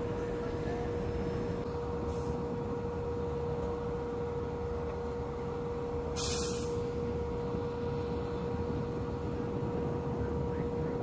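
Steady drone of ship machinery: a constant hum over low rumbling noise, with a short burst of hiss about six seconds in.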